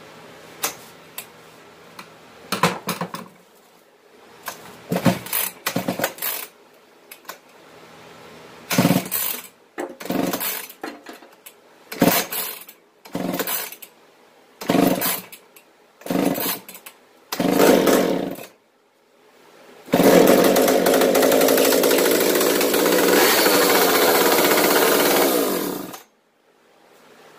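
McCulloch Mac 10-10 Automatic chainsaw's two-stroke engine being pull-started with repeated short bursts over about eighteen seconds. It then catches and runs steadily for about six seconds before cutting off suddenly, showing that the repaired saw runs.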